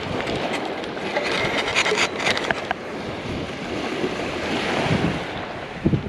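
Wind buffeting the microphone over the steady rush of surf, with a short run of clicks and rubbing sounds about a second in.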